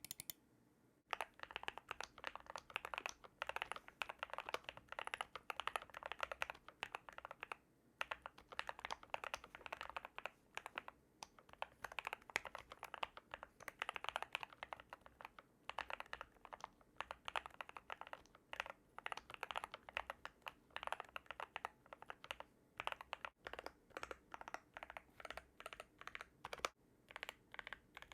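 Custom Keychron Q2 mechanical keyboard with lubed and filmed Gateron Black Ink V2 linear switches, modded with foam, film and tape for a deep sound, being typed on steadily. The typing starts about a second in. Near the end it gives way to separate single keystrokes.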